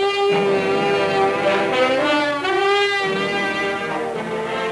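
Background title music: a slow melody of long held notes over a fuller accompaniment.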